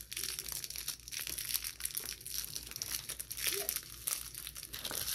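Crinkly plastic wrapping being picked and peeled off a small toy by hand: a continuous run of fine, irregular crackles.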